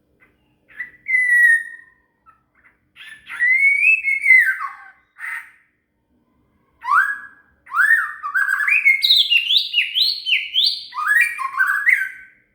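White-rumped shama (murai batu) song: a single held whistle, then a swooping whistled phrase, then a long run of quick rising whistled notes that climb in steps and fall back.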